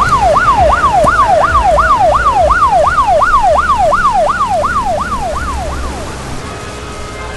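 Emergency vehicle siren in a fast yelp, its pitch sweeping up and down about three times a second over a low vehicle rumble. It fades out about five to six seconds in, leaving a steady hiss.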